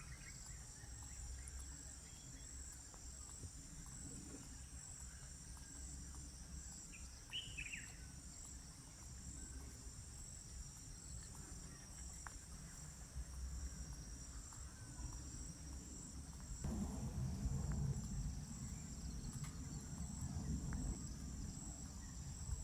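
Steady chorus of insects, crickets or similar, making a continuous high pulsing trill, over a low rumble that grows louder about three quarters of the way through. A brief bird chirp comes about a third of the way in.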